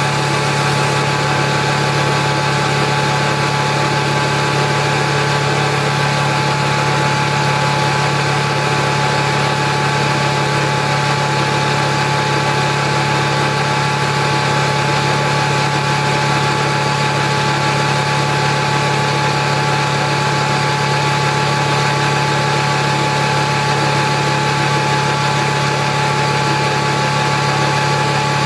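Atlas Copco GX7FF 10 hp rotary screw air compressor running steadily under power: a constant low hum with a steady whine above it.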